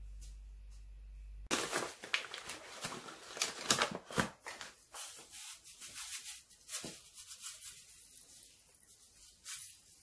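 A paper packet of sugar being handled and opened by hand, crinkling with a quick run of rustles and crackles that thins out after about five seconds.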